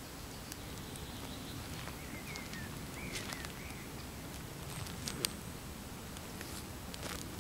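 Hiking shoes stepping slowly down into a flower bed of pansies on soft soil, giving a few soft crunches and sharp clicks as the foot lands. A bird chirps a few times about two to three seconds in, over steady outdoor background noise.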